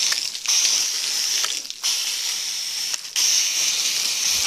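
Foam gun spraying a jet of soapy car wash water onto a car's body panels: a steady hissing spray that drops out briefly three times.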